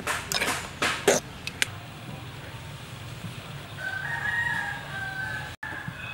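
A spoon clinks and scrapes against a metal bowl of batter several times in the first second and a half. About four seconds in, a rooster crows once, a long call lasting about a second and a half.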